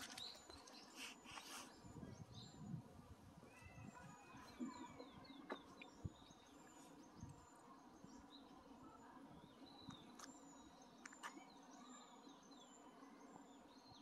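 Faint wild bird calls: scattered high chirps, with a quick run of short notes about five seconds in. A few soft knocks sound in the first two seconds and again around six seconds.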